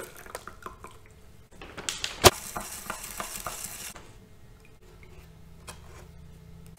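Glass stirring rod clinking and scraping against the inside of a glass beaker as coarse salt crystals are stirred into water, with one sharp louder clink about two seconds in. The clinking stops about four seconds in, leaving only a few faint ticks.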